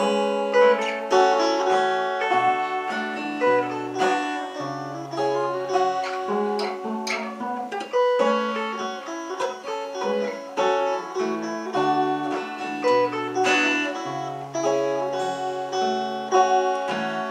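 Instrumental break in a song: plucked guitar accompaniment over a low bass line, with no singing.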